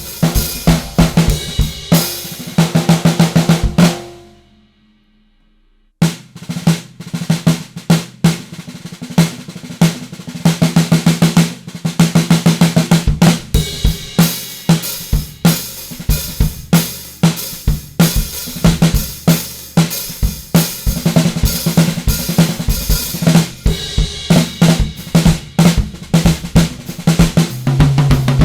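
Solid-block imbuia 14x3.5-inch piccolo snare drum played in fast strokes and rolls, with bass drum beats beneath and a ringing tone after each hit. About four seconds in the playing stops and rings out into near silence, then resumes about two seconds later.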